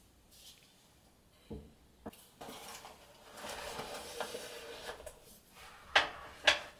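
Handling noise: a soft knock, then rubbing and rustling for a couple of seconds, followed by two sharp clicks near the end.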